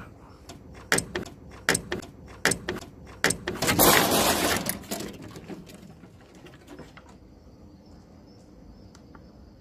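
Two cats scuffling on wooden decking steps: four sharp knocks about a second apart, then a loud rush of noise lasting a second or so as the fight breaks up.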